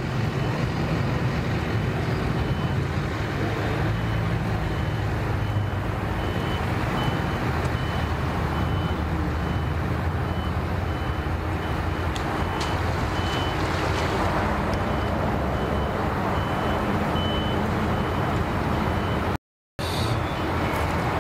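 Pickup truck engine running steadily as it reverses a boat trailer down a ramp, with a reversing beeper giving short high beeps about once a second.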